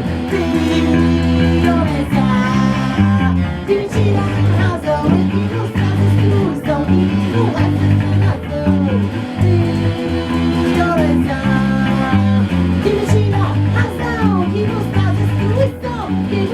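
Band music: electric guitar and bass guitar playing a song, with pitch-bending lead lines above the held chords.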